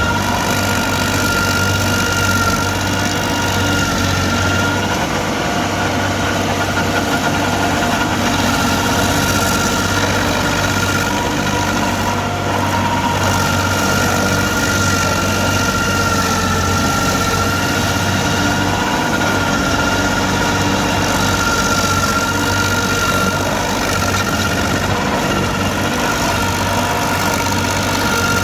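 Stump grinder running steadily: a constant engine hum with a high steady whine over it.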